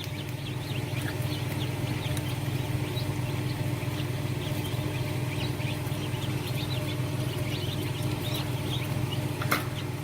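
Newly hatched chicks peeping over and over in an incubator, short high chirps over the incubator's steady fan hum. A single sharp click near the end.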